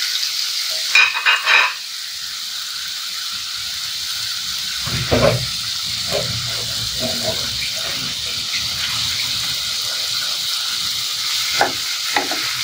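Julienned potato sizzling steadily in hot oil in a frying pan. A few sharp knocks come about a second in, a duller thud around five seconds, and light taps of a utensil against the pan later on.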